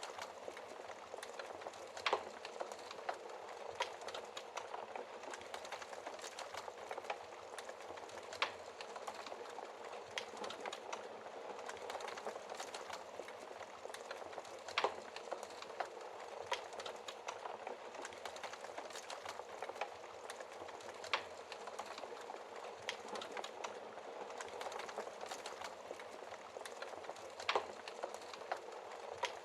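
Wood fire in a fireplace crackling: a steady hiss full of fine, quick crackles, with a sharper pop of burning wood about every six seconds.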